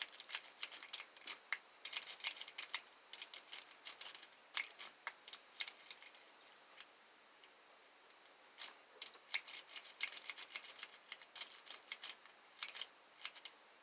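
Bogota rake pick clicking against the pins inside a pin-tumbler lock as it is raked in and out: rapid, irregular metal clicks in clusters, thinning out for a couple of seconds midway and then picking up again.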